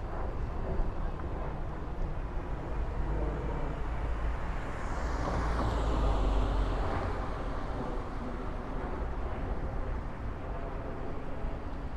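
A vehicle passing by, its sound swelling to a peak about halfway through and then fading, over a steady low outdoor traffic rumble.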